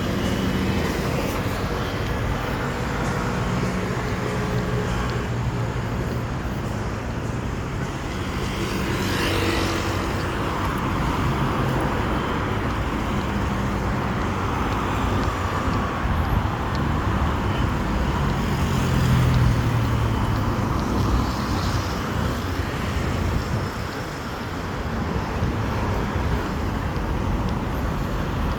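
Steady road-vehicle noise: engine hum and rolling noise without a break, with a low hum that shifts in pitch now and then.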